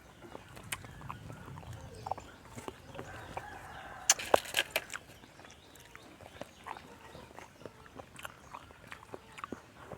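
Domestic chickens clucking faintly amid scattered light clicks and taps, with a quick run of sharp clicks about four seconds in.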